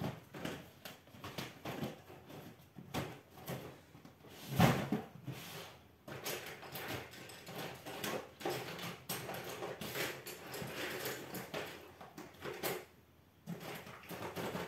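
Rummaging through felt-tip markers and pens: irregular plastic clicks and rustling, with a louder knock about four and a half seconds in.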